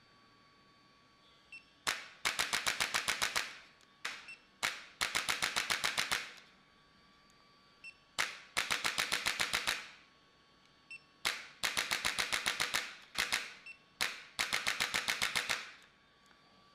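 Rapid trains of sharp mechanical clicks, about eight a second, in six bursts of one to two seconds each with short pauses between.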